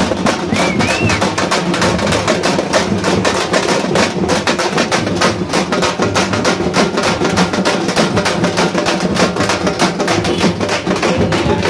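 A group of dappu frame drums beaten with sticks, playing a fast, unbroken beat of sharp strikes.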